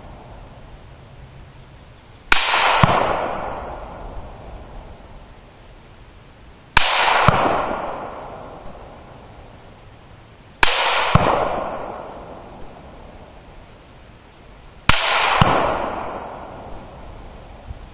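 M-16 A3 rifle (5.56 mm) firing slow, aimed single shots, four in all, about four seconds apart. Each shot has a second sharp crack about half a second after it, then a long rolling echo that dies away over a few seconds.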